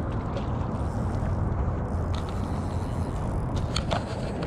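Steady low rumble of wind buffeting the microphone, with a few faint clicks about three and a half seconds in.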